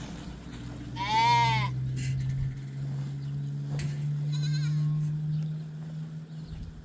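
Goat bleating: one loud high call about a second in, and a fainter one about four seconds in, over a steady low hum.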